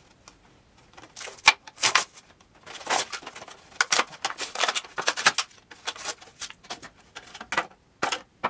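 Clear plastic blister packaging crinkling and crackling as it is opened by hand and a white plastic violin bowing guide is pulled out of it, in a run of irregular crackles and clicks. A sharp click about a second and a half in is the loudest sound.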